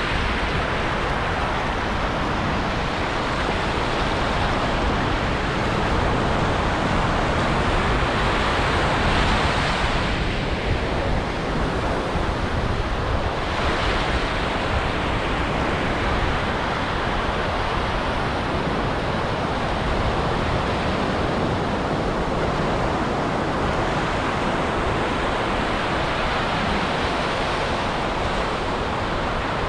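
Ocean surf washing onto a beach, a steady rushing wash that swells louder now and then as waves break.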